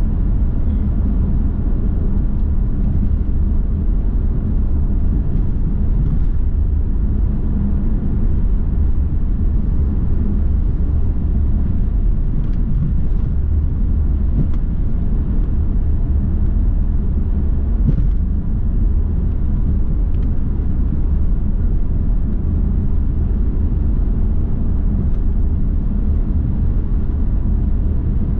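Steady low rumble of a car driving at a constant speed, heard from inside the cabin: tyre and engine noise with no changes in pitch.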